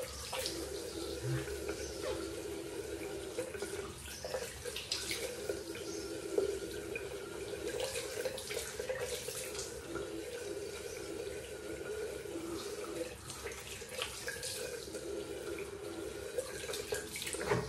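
Bathroom tap running steadily into a sink, with intermittent splashing as wet hands rinse away shaving lather.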